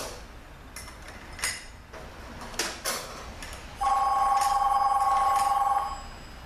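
Light metallic clinks of transmission clutch plates being handled, then about four seconds in a telephone rings with a loud two-note trill lasting about two seconds.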